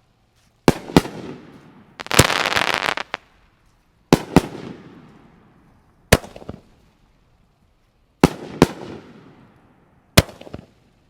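Aerial shells from a 9-shot double-break firework cake bursting: sharp bangs, mostly in close pairs about two seconds apart, each trailing off in an echo. About two seconds in, one break gives way to about a second of dense crackle.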